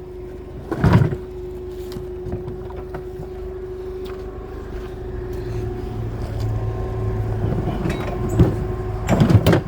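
A vehicle engine running steadily with a constant hum, broken by a loud metallic clunk about a second in and a cluster of knocks near the end as scrap is handled.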